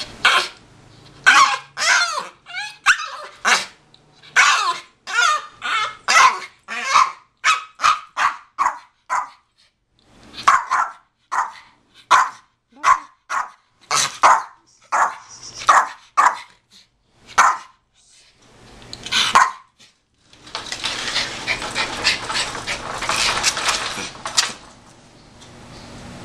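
Miniature pinscher barking and yelping over and over in quick short bursts, often two or three a second, the crying of a dog left at home by its family. Near the end the barking stops and there are about four seconds of rushing noise.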